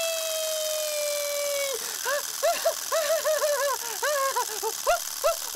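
Clockwork spring motor of a wind-up plastic turtle bath toy running with its flippers spinning freely in the air. A steady whine falls slowly in pitch, then about two seconds in breaks into a quick, uneven run of chirping pulses, about four a second.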